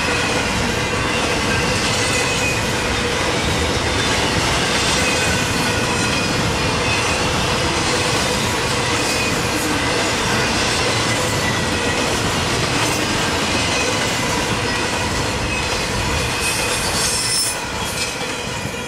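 Intermodal freight train's container-laden well cars rolling past at close range: steady wheel-on-rail rumble with a thin, steady wheel squeal. The sound falls away near the end as the last car goes by.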